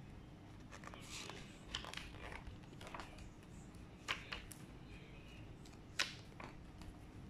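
Pages of a large hardcover picture book being turned by hand: paper rustling with a few sharp page flaps, the loudest near the end.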